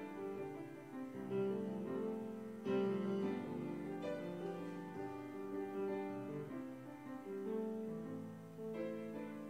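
Solo piano playing a slow, quiet piece of sustained chords, with new notes struck every second or so.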